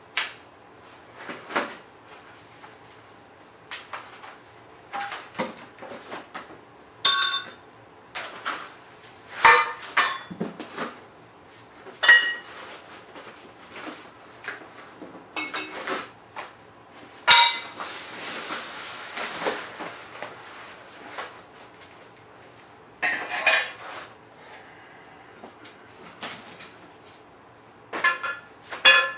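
Steel parts of a Pittsburgh portable manual tire changer clanking and ringing as they are handled, fitted and levered: irregular metal knocks, some with a short ring, and a hiss lasting about two seconds midway.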